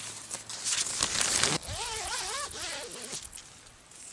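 A tent door zip is pulled along in one rasping run of a little over a second. It is followed by a wavering pitched call that rises and falls for about a second and a half.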